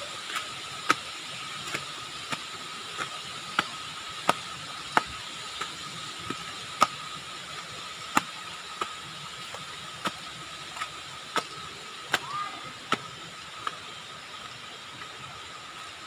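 Footsteps on concrete steps, a sharp step about every two-thirds of a second, thinning out near the end. Under them runs a steady hiss with a thin high tone.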